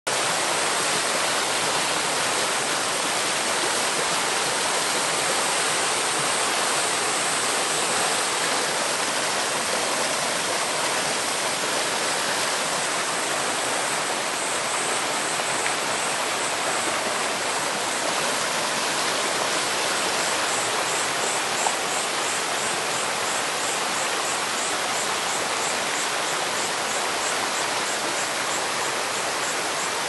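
Mountain stream cascading over mossy boulders: a steady, full rush of tumbling white water.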